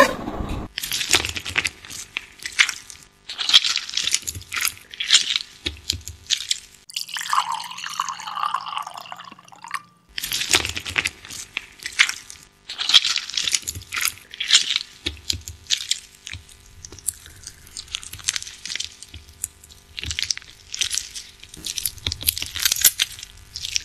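Hand-mixing and kneading sounds: wet squelching and crackling in many short bursts as a minced-meat filling and then soft dough are worked by hand in a bowl. A smoother, different passage comes about a third of the way in.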